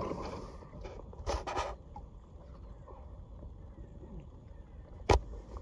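Short bursts of splashing and rustling as a large pike is lifted out of a landing net beside a fishing kayak, over a low rumble of wind on the microphone. One sharp knock near the end.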